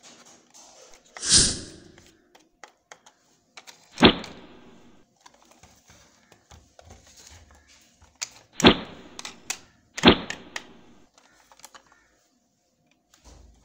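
Plastic toy train being handled: a brief scraping rustle about a second in, then three sharp knocks and scattered small clicks as the hollow plastic body is set down and turned over.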